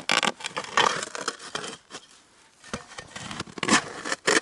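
Digging in soil around a stuck buried metal object: a run of irregular scraping, crunching strokes of a digging tool biting into the ground.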